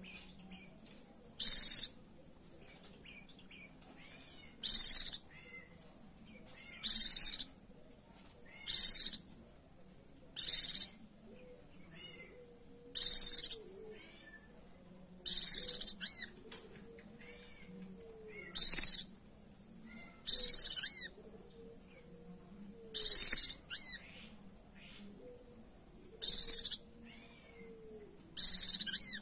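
Female white-eye (pleci) giving short, high calls, each about half a second, repeated every two to three seconds: the female's call to a male.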